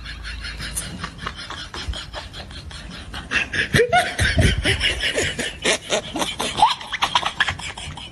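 Laughter, giggling in quick breathy pulses, several a second, growing louder about four seconds in.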